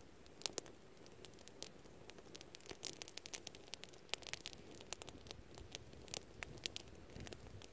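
Campfire of dry twigs and brush crackling: irregular sharp pops and snaps, several a second at times, over a faint steady hiss.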